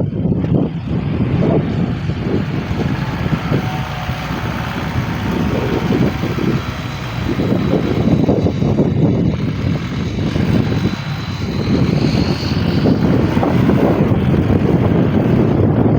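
Strong wind blowing across the microphone, a loud rough rumble that gusts up and eases.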